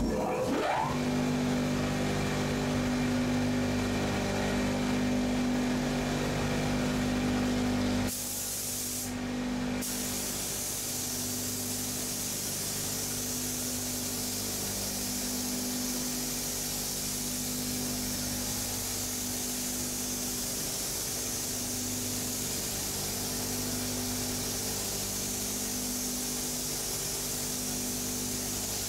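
Gravity-feed paint spray gun hissing steadily as it sprays, over the steady hum of an air compressor. About eight seconds in the hum drops in level, and from then on the spray gun's high hiss runs continuously.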